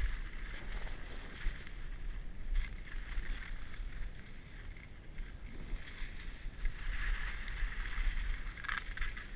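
Skis sliding and scraping over packed snow, with a sharper scrape near the end, over a low rumble of wind buffeting the camera's microphone.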